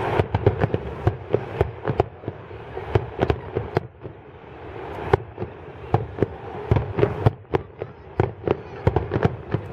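Aerial fireworks in the finale barrage of a display: shells bursting in rapid, irregular sharp bangs, several a second, easing briefly about four seconds in before picking up again.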